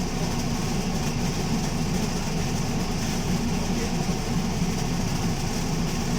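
Alexander Dennis Enviro200 MMC single-deck bus running with a loud, steady low rumbling.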